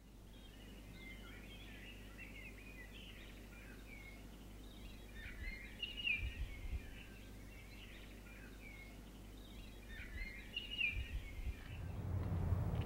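Outdoor ambience of small birds chirping over a faint steady low hum, the calls coming in busier clusters twice. A low rumble rises near the end.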